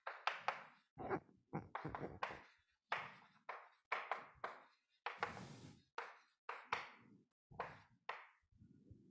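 Chalk writing on a blackboard: a quick series of taps and scratches, two or three strokes a second, with one longer scrape about five seconds in.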